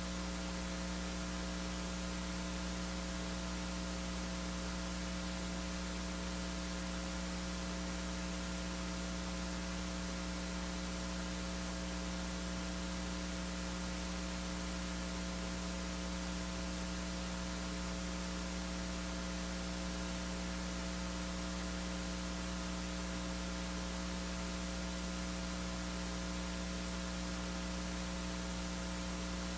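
Steady electrical mains hum with a layer of hiss, unchanging throughout, with no other sound.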